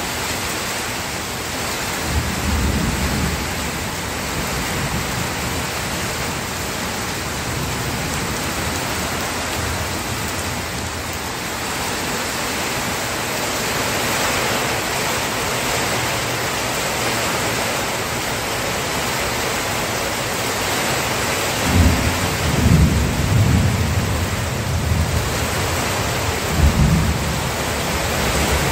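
Steady heavy rain with thunder: a low rumble of thunder about two seconds in, and several more rolling rumbles in the last seven seconds.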